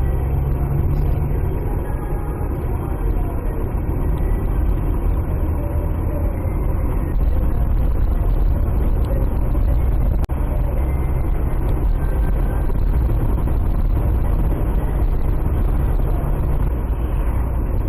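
A car driving along, heard from inside the cabin: a steady low rumble of engine and tyres on the road. The sound drops out for an instant about ten seconds in.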